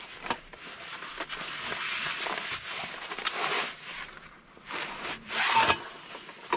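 Folding camp cot being pulled out of its fabric carry bag: uneven rubbing and scraping of fabric against the cot's frame, with a louder burst near the end as the cot comes free.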